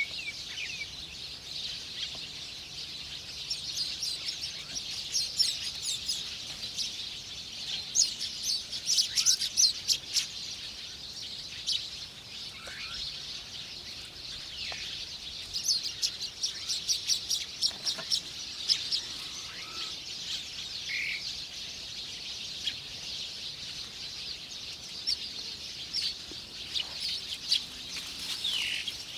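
Small birds chirping: many quick, high chirps, thickening into rapid flurries about a third and about two-thirds of the way through, with a few short down-slurred calls between.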